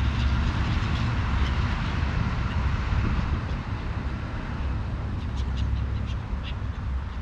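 Steady rumble of street traffic that eases off after a few seconds, with a few short bird calls near the end.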